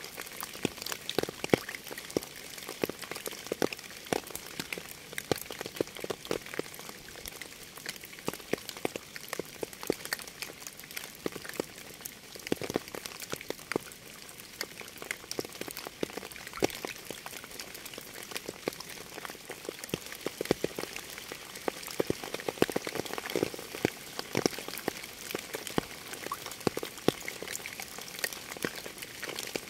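Steady rain, many irregular drops striking a surface over a continuous hiss.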